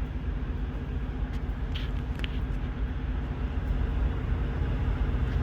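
Steady low engine-like rumble with a constant hum, and a couple of brief faint clicks about two seconds in.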